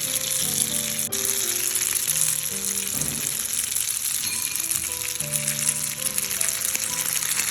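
Pasta with smoked duck, peppers and onions sizzling in olive oil in a frying pan, a steady hiss, over background music of slow held notes.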